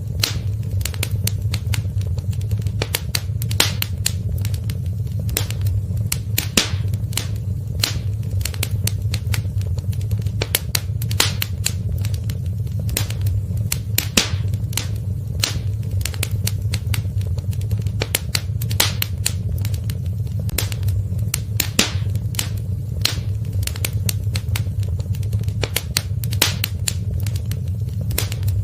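Wood fire burning in a fireplace: a steady low rumble of the flames with frequent, irregular sharp crackles and pops of the burning wood.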